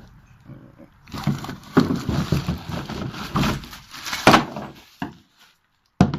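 Packaging rustling and crackling while kayak accessories are handled and pulled out, with a sharp knock about four seconds in.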